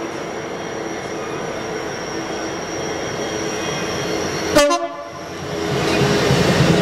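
GB Railfreight Class 66 diesel-electric locomotive, with its two-stroke V12 engine, approaching and then passing close by; its running grows much louder near the end as it draws level. A single sharp click comes about four and a half seconds in.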